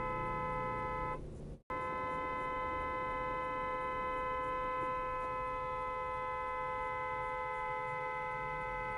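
Vehicle horn held in one long, steady blast, several notes sounding together. It fades and cuts out briefly about a second and a half in, then sounds again, with a low rumble underneath.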